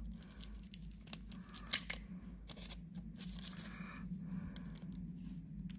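Small clicks and scrapes of a digital micrometer being handled while a new silver-cell button battery is fitted, with one sharp click about a second and a half in. A low steady hum runs underneath.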